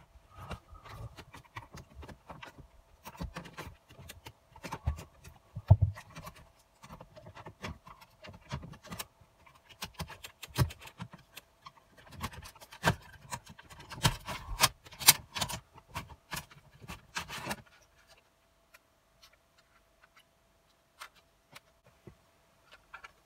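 Plastic dashboard trim and an Audi A4 B6/B7 cup holder unit being pried out with a thin tool: irregular clicks, knocks and scraping of hard plastic, busiest and loudest in the middle, stopping suddenly about three-quarters of the way through, with only a few faint clicks afterwards. A faint steady high tone sits underneath.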